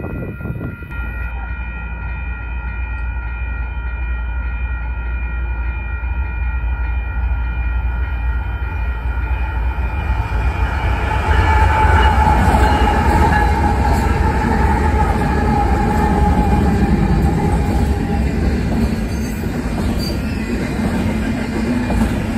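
Union Pacific diesel freight locomotives running past close by, their engine rumble growing louder until they pass about eleven seconds in. Then a double-stack container train rolls by with wheel and rail noise.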